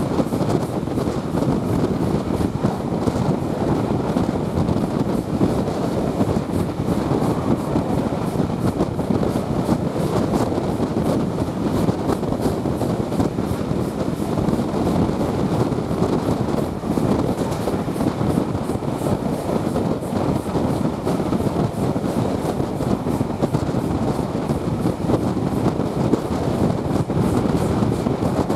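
Passenger train running steadily at speed, heard from an open coach window: a continuous rumble of wheels on the track.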